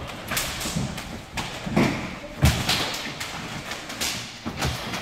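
Irregular thuds of several people's feet hitting a wooden gym floor during fast judo throw-entry drills against rubber resistance bands. There are a dozen or so thuds, the loudest about two and a half seconds in.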